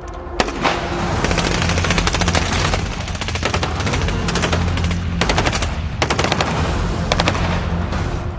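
Several long bursts of fully automatic rifle fire, rapid shots in quick succession with short breaks between bursts, over a steady music bed.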